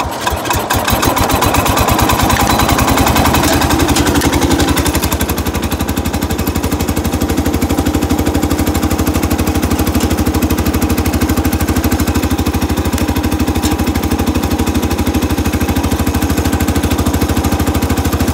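Cub Cadet 125 garden tractor's single-cylinder Kohler engine running steadily with an even, rapid putter while the tractor is driven across snow.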